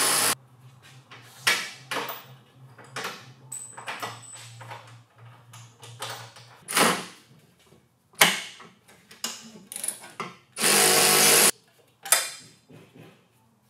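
A handheld power tool runs in short bursts: one stops just after the start, and another runs for under a second near the end. Between them come scattered clanks and clicks of metal tools and parts as fasteners are worked loose on a car's underside.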